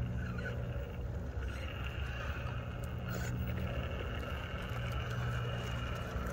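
Cross RC Demon SU4 rock crawler's electric motor and geared transmission whining steadily as it crawls over rock.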